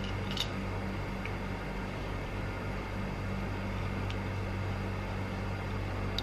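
Steady low hum of room noise, with a few faint light clicks as a black leather bracelet with silver metal hardware is handled and buckled onto a wrist.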